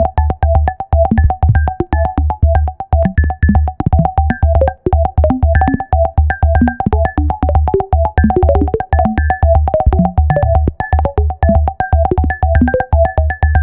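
Electronic music: a fast, steady beat with a pulsing bass and repeating synthesizer notes.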